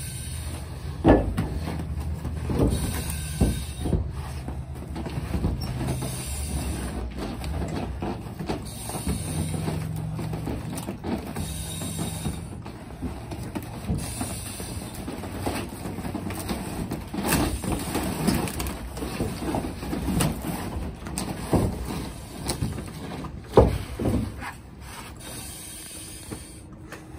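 Knocks, cracks and scrapes of a firefighter breaching and crawling through an oriented strand board (OSB) wall with a pick head axe, a few sharp hits scattered through, the loudest near the end. Between them comes the hiss of breathing through an SCBA mask every few seconds, over a steady low rumble.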